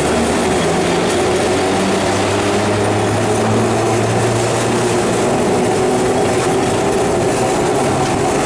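Calcutta Tramways tram running along its track: a steady rumble of wheels on rails with a low hum underneath.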